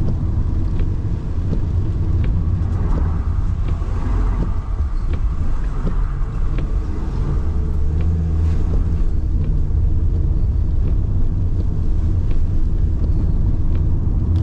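Car driving, heard from inside the cabin: a steady low rumble of engine and tyres, with scattered light ticks.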